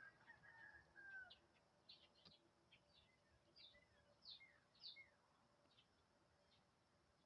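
Faint chirping of small birds: many short, high chirps that slide downward in pitch, with a longer whistled note in the first second.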